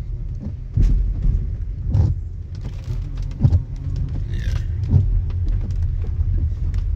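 Low road rumble of a car being driven, heard from inside the cabin, with a low thump every second or so.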